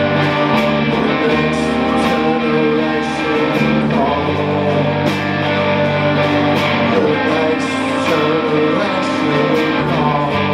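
Band playing live: electric guitars holding sustained chords over bass and drums, with regular cymbal and drum hits.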